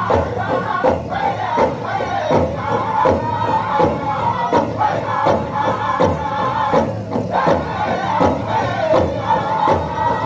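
Powwow drum group singing a prairie chicken dance song: voices in unison over a steady beat on a big drum.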